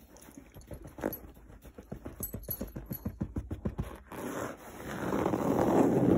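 Fingertips scratching quickly on a mesh-fabric cushion, a rapid run of short scratches. About four seconds in it gives way to a louder rubbing rustle that swells toward the end.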